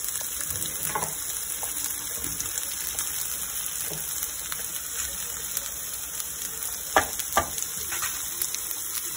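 Diced vegetables and peanuts sizzling in hot ghee in a pan while a wooden spatula stirs them, with two sharp knocks close together about seven seconds in.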